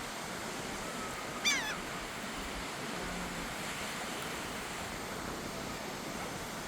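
A seagull gives one short, bending call over the steady wash of surf and wind.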